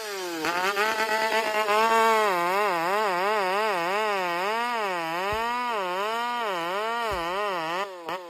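Buzzing chainsaw-meme sound effect, its pitch wavering up and down about two to three times a second; it cuts off just before the end.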